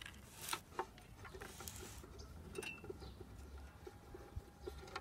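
Faint, scattered clicks and ticks of a hex key turning out the top-cover screws of a Makita HM1801 demolition hammer.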